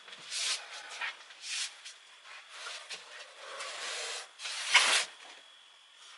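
Irregular rustling and scraping noises, a short swish about every second, with the loudest one about five seconds in.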